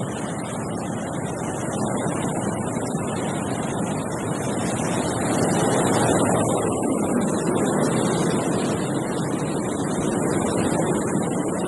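Wind blowing through a tree in a steady rush that swells into a stronger gust about halfway through and then eases.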